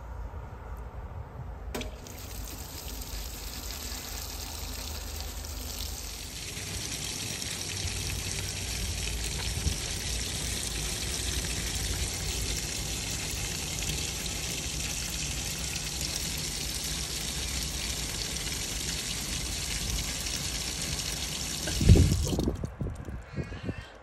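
Maytag Heritage top-load washer filling with water: a steady hiss of water pouring into the tub, growing louder about six seconds in. Near the end the flow cuts off and there is a loud thump.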